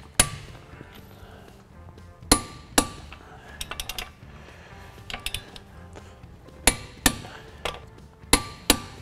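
Click-type torque wrench on the lug nuts of a 2001 Ford Ranger front wheel, giving a string of sharp clicks as each nut reaches 100 foot-pounds. Quick runs of lighter ticks fall between the clicks, twice.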